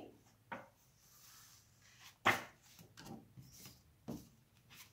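Folded sheets of paper and card being handled on a table: a few brief rustles and taps, the loudest a little over two seconds in.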